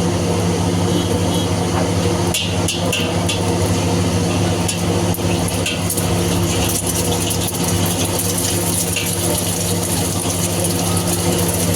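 Steady, loud mechanical hum, like a stall burner or blower, with scattered sharp metallic clicks of a cooking utensil against a pan.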